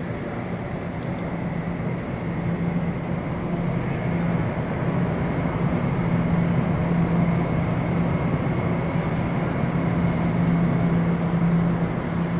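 A steady low mechanical hum with a droning tone. It grows louder about two seconds in and then holds.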